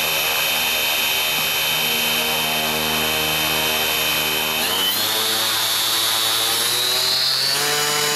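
Predator 37 electric sustainer motor on the EMG-6 motor glider, running on the ground with its propeller turning: a steady electric whine over the propeller's hum. The pitch steps up a little over halfway through as the throttle changes, and shifts again near the end.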